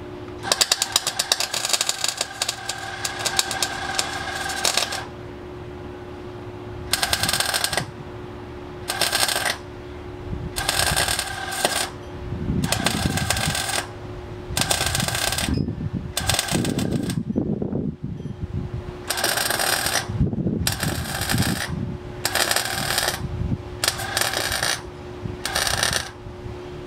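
Electric welding arc crackling in short stops and starts, one run of about four seconds and then about a dozen bursts of half a second to a second, as stitch or tack welds are laid on the engine-bay sheet metal. A steady hum runs underneath.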